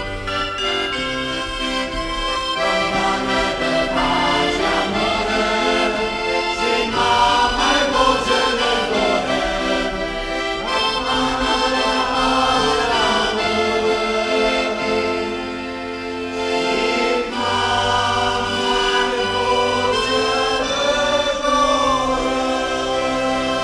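Accordion playing a traditional folk tune in sustained chords over steady bass notes, with voices singing along.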